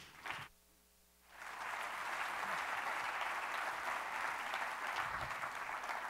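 An audience applauding, coming in about a second in and then carrying on steadily.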